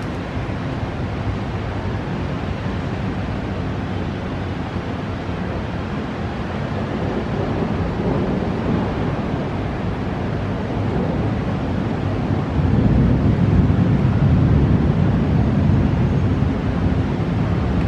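Storm wind buffeting the microphone as a steady, low rushing noise, growing louder about two-thirds of the way through.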